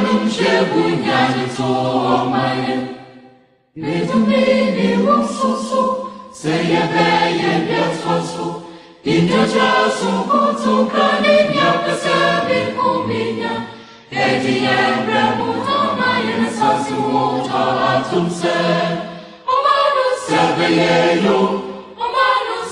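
A choir singing in phrases of a few seconds each, with short breaks between them.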